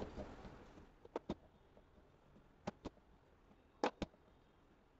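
Wooden rolling pin rolling out a paratha on a steel plate: faint, with three pairs of light clicks a little over a second apart, as the pin knocks against the metal plate.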